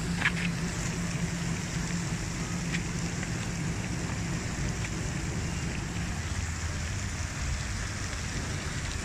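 Water from a DIFFUL solar aeration pump's fountain spray splashes steadily back onto the pond surface, in an even, rain-like patter.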